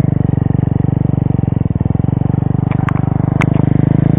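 KTM 250 SX-F's single-cylinder four-stroke engine running at low, steady revs, with a few sharp knocks and clatter about three seconds in as the bike tips over onto its side, the engine still running.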